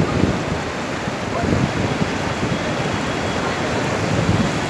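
Godavari river in flood, its fast floodwater rushing in a steady, loud wash of noise.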